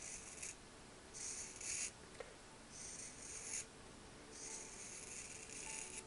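Four quiet, scratchy rubbing strokes of a craft tool worked against paper or foam, each lasting roughly half a second to a second and a half, with a faint tap about two seconds in.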